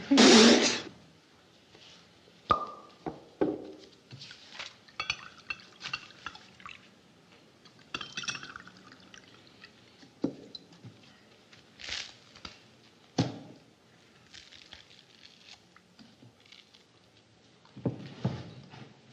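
A loud sudden sound in the first second, then the small sounds of a meal: plates, glasses and cutlery clinking and knocking, and wine poured from a bottle into a glass.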